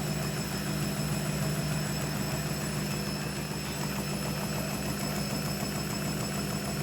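Hoover washing machine running a high-speed spin, a steady low hum with the drum vibrating; the load is badly unbalanced.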